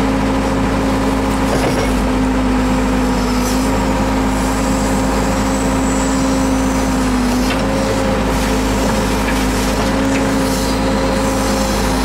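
Case 580L backhoe's turbocharged four-cylinder Cummins-built diesel engine running steadily while the backhoe digs. Its note sags briefly about seven seconds in.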